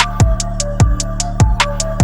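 Electronic background music with a steady beat: kick drum and hi-hat strokes about three times a second over a held bass and short synth notes.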